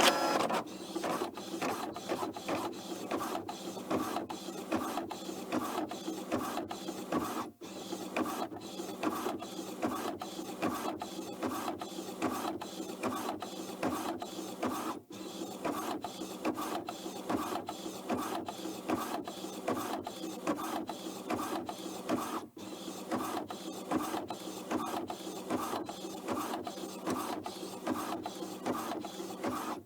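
Office printer running: a steady mechanical whirr with a fast, regular clatter, broken by a brief gap about every seven and a half seconds.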